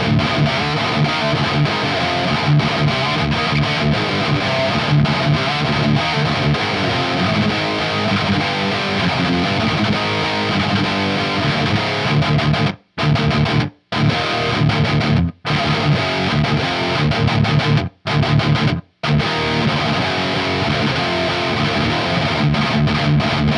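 Distorted electric guitar playing thrash metal riffs through a Laney GH100TI all-tube amp boosted by a Boss SD-1 overdrive, with a little sag still in the amp's gain. The riffs stop dead for short breaks several times in the second half.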